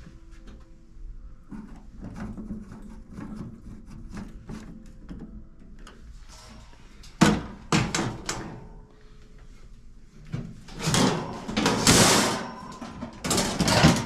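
Stainless steel top cover of a Nuova Simonelli Appia II espresso machine being handled and fitted: a sharp metal clank about seven seconds in, then loud scraping and sliding of sheet metal near the end as it is pushed into place.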